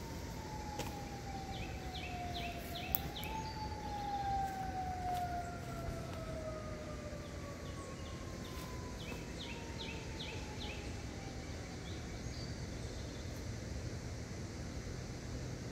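A siren winding slowly down in pitch, rising again briefly about three seconds in before falling away. A second, higher siren tone falls alongside it from there. Two short runs of high chirps and a single sharp click near three seconds in.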